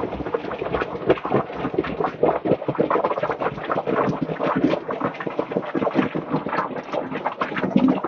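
Water bubbling and splashing hard in a koi pond filter chamber as it is purged, a dense, irregular churning with no pauses.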